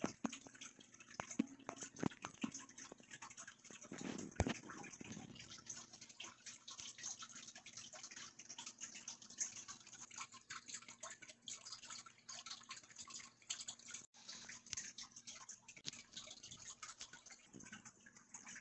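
Faint handling noise of small stainless steel EDC tools on a wooden desk: scattered small clicks, taps and rustles, with a few louder knocks in the first five seconds.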